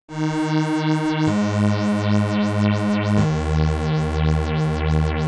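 Crumar Stratus analog synthesizer sounding three sustained low notes in turn, each lower than the last, with its LFO sweeping the filter open and closed about three or four times a second for a rhythmic wah-like wobble.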